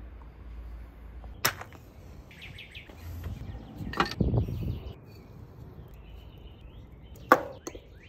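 Cooking handling sounds: three sharp knocks or clacks about three seconds apart, with softer scraping and rustling between.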